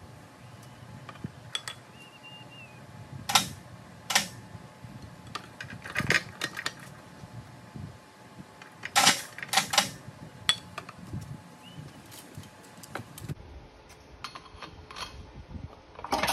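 Scattered metallic clinks and knocks, some in quick pairs, as a Ford Model A drive shaft is turned and the differential is worked down onto its splines until they engage.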